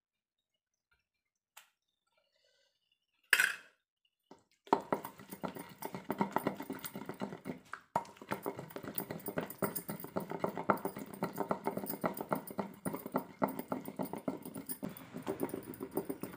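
Wooden pestle pounding and mashing wet tomato chutney in a stone mortar: rapid, repeated soft thuds starting about five seconds in, after a near-silent stretch with one short knock.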